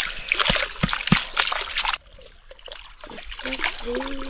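Water splashing and trickling. It drops off abruptly about halfway through to a quieter trickle, and a voice comes in near the end.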